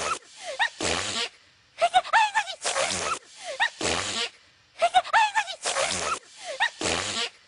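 A female cartoon voice's high-pitched gasping build-ups, each breaking into a sneeze, on a loop that repeats about every three seconds, two sneezes to each round, about five in all.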